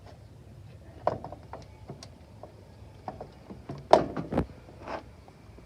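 Hitch-mounted bike rack being worked by hand: scattered metal clicks and knocks as its clamps and arms are moved and fitted, with the loudest knocks about four seconds in.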